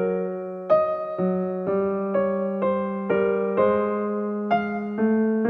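Background music: a gentle solo piano piece, with notes and chords struck about twice a second over a held bass note.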